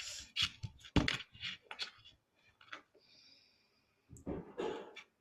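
Slime being stretched and squeezed by hand, giving a run of soft clicks and pops in the first two seconds and again near the end.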